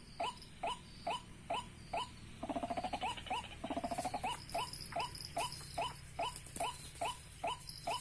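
White-breasted waterhen calls played from a bird-trapping lure caller: a short 'kwak' note repeated evenly about twice a second, broken twice by a quick rattling trill a few seconds in.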